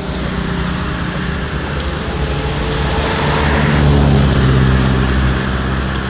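A motor vehicle's engine running close by, growing louder to a peak about four seconds in and then easing off as it passes.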